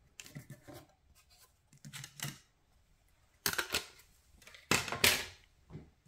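Paper being handled at close range: four short rustling, scraping bursts, the loudest two in the second half.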